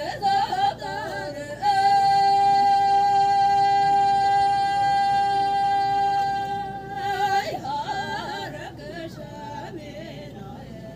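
Two women singing a traditional Chakhesang Naga folk song unaccompanied: short wavering phrases, then one long steady high note held for about six seconds, then more wavering phrases that fade out near the end.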